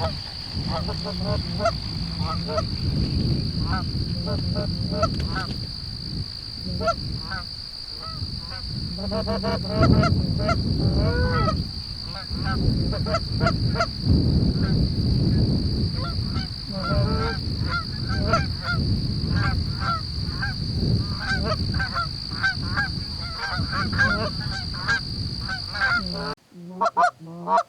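Canada geese honking: a steady stream of short, overlapping honks from a flock, dense throughout, over a low rumble and a thin steady high-pitched tone. The sound cuts off abruptly near the end.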